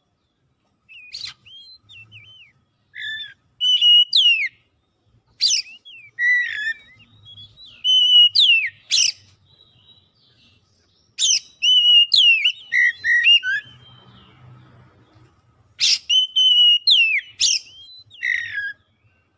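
Oriental magpie-robin singing: loud bouts of varied clear whistles, quick upslurred notes and sharp clicks, each bout a few seconds long with short pauses between.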